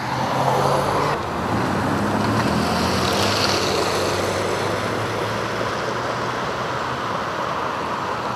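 Jeep Liberty SUV driving by on wet pavement: a steady engine hum under tyre hiss.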